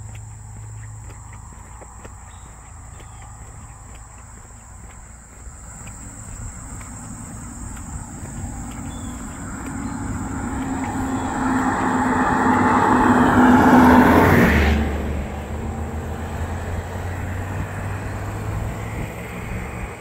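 A road vehicle drives past close by: its tyre and engine noise builds for several seconds, peaks, then drops off sharply as it goes by. Insects trill steadily throughout.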